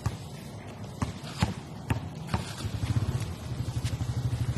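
Basketball bouncing on a concrete court, about five sharp bounces in the first two and a half seconds. From about halfway a low, fast-pulsing engine sound rises underneath.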